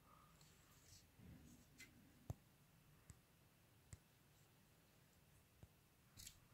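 Near silence broken by a few faint, sharp clicks from a smartphone being handled and tapped. The strongest comes about two seconds in.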